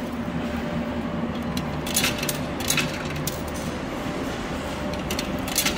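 Coin pusher machine running with a steady mechanical hum, and a few sharp metallic coin clinks about two, three and near six seconds in.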